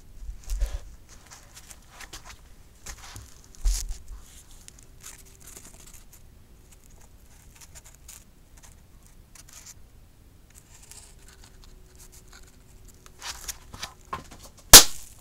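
Homemade match-head firecracker going off with one sharp bang near the end, after a second of short crackles as it catches in a candle flame. Faint handling knocks and clicks come earlier.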